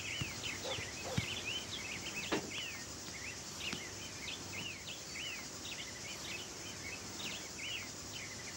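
Many small birds chirping, a dense run of short rising-and-falling chirps over a steady outdoor hiss, with a few soft knocks, the loudest about two seconds in.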